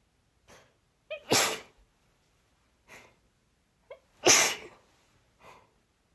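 A woman sneezing twice, about three seconds apart. The sneezes are breathy and airy, each opening with a brief voiced catch. Quieter breathy sounds come between them.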